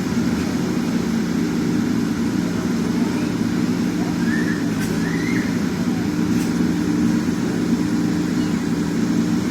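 JCB backhoe loader's diesel engine running steadily at a constant pitch, with two faint clicks about halfway through.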